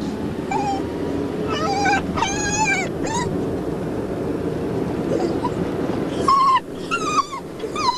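Dachshund whining in a car: high, wavering whimpers in short bouts, several in the first three seconds and more from about six seconds in, over a steady low rumble of road noise. It is the distress of a dog that hates being in a car.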